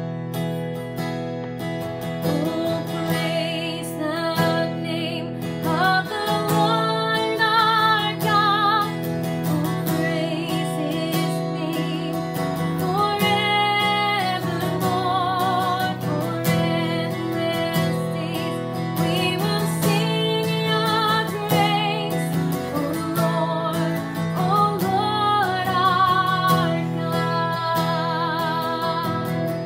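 A woman singing a worship song with some vibrato, accompanying herself on a strummed steel-string acoustic guitar; the strummed chords sound throughout and her voice comes in a couple of seconds in.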